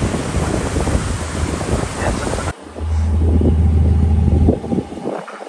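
Wind rushing over the microphone with the cruise boat's engine and water noise underneath. About halfway through the sound cuts abruptly to a steady low engine drone.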